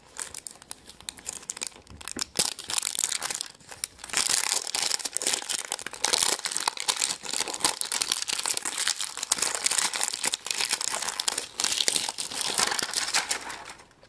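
Plastic wrapping crinkling and tearing as it is peeled off a giant plastic Easter egg. A dense run of crackles that grows louder about four seconds in and stops just before the end.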